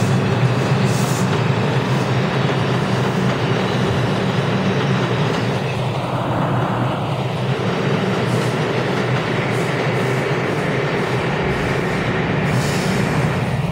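New York City subway train running out of the station along the platform: a steady rumble of wheels and traction motors, with a few brief high squeals from the wheels.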